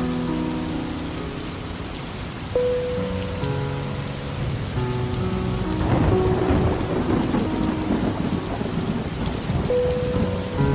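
Steady rain falling, with a roll of thunder that swells about six seconds in and rumbles on for a few seconds.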